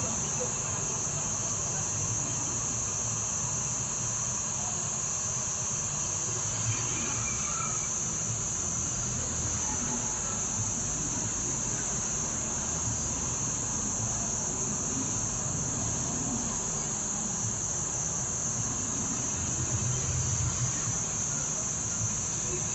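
Hot air rework station blowing steadily onto a phone charging port to melt its solder, under a constant high-pitched trill.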